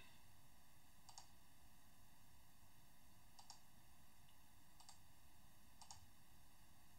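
Four faint computer-mouse clicks, each a quick pair of ticks, over near-silent room tone.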